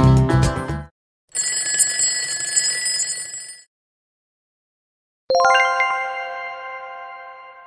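Background music cuts off about a second in, followed by a ringing bell sound effect of about two seconds marking that time is up. After a pause, a single bright chime strikes and rings out, slowly fading, as the answer is revealed.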